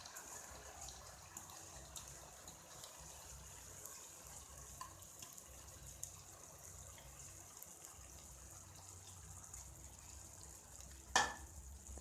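Faint steady sizzle of chicken and soaked rice frying in oil in a pot, with one sharp clank of a metal utensil on the pot near the end.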